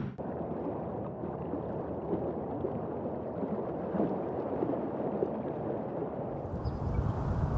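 River water gurgling and lapping, an unsteady flicker of small splashes. About six and a half seconds in, a brighter rushing hiss joins it and the sound grows a little louder.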